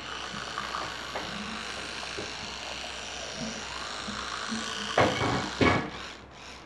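Electric toothbrush buzzing steadily while brushing teeth. Two loud thumps come about five seconds in.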